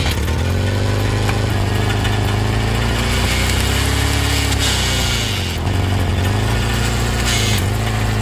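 Engine of a homemade firewood processor running steadily, its pitch sagging briefly and recovering as it takes load, at the start, about five and a half seconds in, and again near the end.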